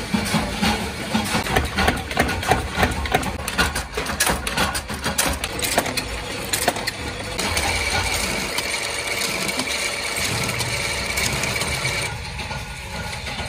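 Metalworking machinery in a small workshop: a fast clatter of metallic clicks and knocks as steel strip is sheared and pressed, then a steady mechanical hum with a thin whine. It drops to quieter background noise near the end.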